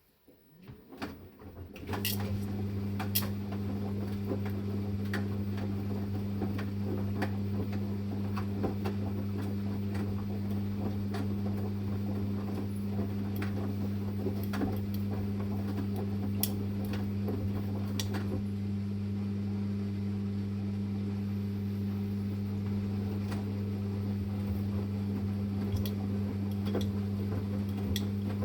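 Samsung Eco Bubble washing machine: a pump or motor inside starts up about two seconds in and hums steadily, with scattered light clicks and rattles over it.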